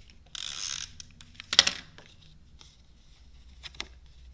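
Handling of card stock and ribbon on a craft table: a short brushing rustle near the start, a sharp crackling knock about a second and a half in, then a few light taps.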